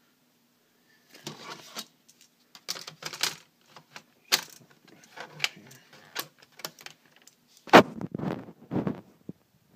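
Clicking, rattling and knocking of an opened laptop's plastic and metal parts being handled, in irregular clusters with the sharpest knock about three-quarters through.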